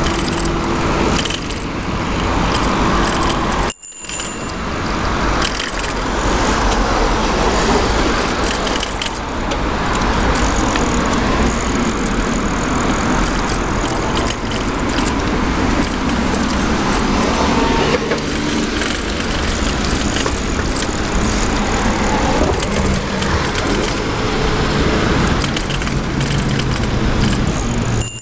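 A bicycle chain lock wrapped on the bike rattles and jangles continuously as the bike rides over paving, mixed with the noise of cars passing on the road. The sound drops out briefly about four seconds in.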